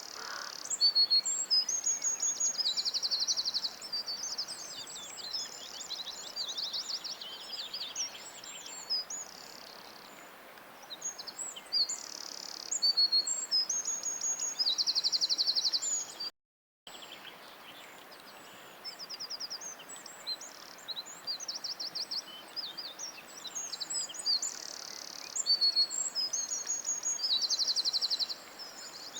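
Lovebirds chirping and chattering: shrill high chirps and fast buzzy trills in bursts, over a faint steady hiss. The sound cuts out completely for a moment about halfway through.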